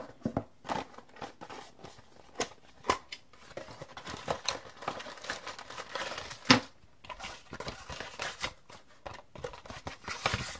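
Packaging being handled: the Nexus 7's cardboard box and inner tray sliding and tapping, and a clear plastic accessory bag crinkling as it is pulled at. A sharp knock about six and a half seconds in is the loudest sound.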